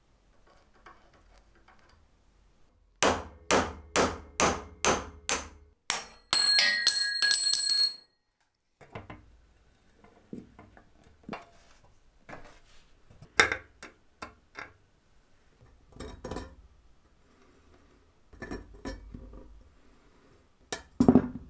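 Disassembly of a rusty antique potato peeler with hand tools: six sharp metal strikes, about two a second, followed by about two seconds of high ringing squeal. Then scattered clicks and clanks of a wrench on nuts and rusty iron parts being handled and set down, with a louder knock near the end.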